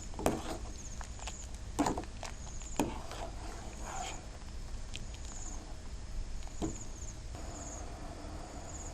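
A few sharp knocks and clicks of a utensil against a pot of simmering coconut milk, with a cricket chirping in short high trills about once a second in the background.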